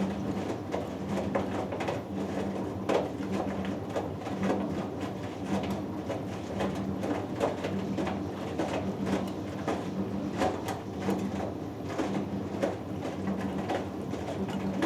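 Hoover Dynamic Next DXA610IW3 front-loading washing machine tumbling a wash load: the drum motor hums on and off while wet laundry drops and splashes inside the drum with irregular soft thuds.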